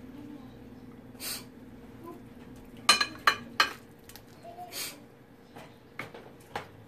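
Stainless steel ladle clinking against a ceramic bowl as lobster meat and broth are ladled in, with a quick cluster of sharp clinks about three seconds in and a couple more near the end. A steady low hum runs underneath.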